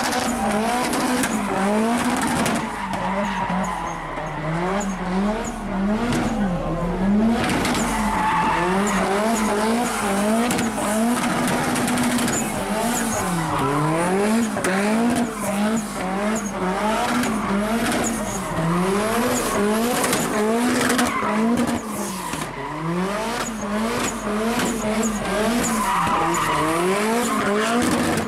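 A car doing donuts on pavement: the engine revs rise and fall about once a second as the throttle is worked, over the steady screech of spinning, sliding tires.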